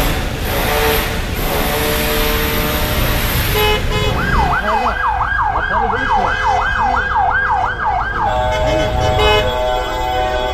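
Busy city traffic noise, then an emergency vehicle siren in fast yelp mode, sweeping up and down about two and a half times a second for some four seconds, with one more sweep near the end. Steady held tones run alongside it.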